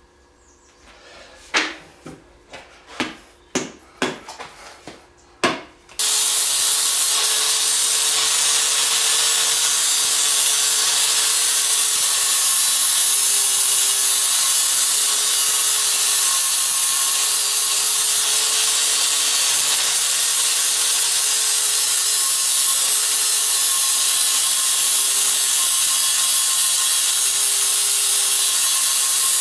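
A few sharp knocks as tools are handled, then an angle grinder starts abruptly about six seconds in and runs steadily, grinding down the wooden axe handle where it is too tight to fit the axe head's eye.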